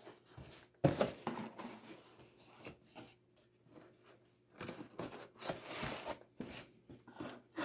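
A QSP Canary folding knife slicing through a package's packing material, with irregular scraping, tearing and rustling as the blade is drawn through and the packaging is handled.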